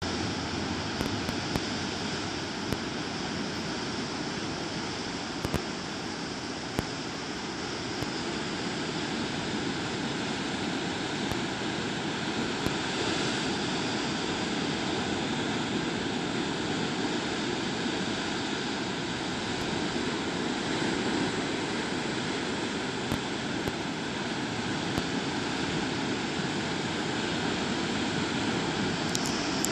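Ocean surf washing over and around rocks at the foot of sea cliffs: a steady rushing noise that swells a little, with a few small clicks.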